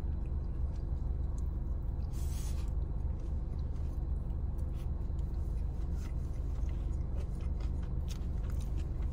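Eating from a foam takeout box with a plastic fork: a brief scrape about two seconds in as the bite is taken, then chewing with small mouth and utensil clicks, over a steady low hum inside the car.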